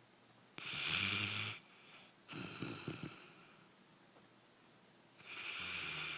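A sleeping dog snoring: a loud snore about half a second in, a shorter rattly breath after it, and the next snore starting near the end.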